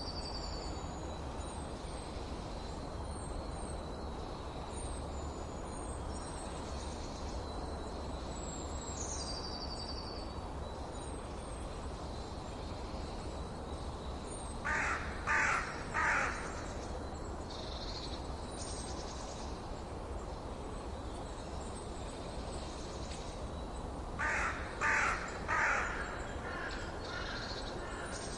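Birds singing and calling: thin, high phrases that slide down in pitch repeat several times in the first ten seconds, then twice a series of three loud calls, once in the middle and again near the end. A steady low hiss sits underneath.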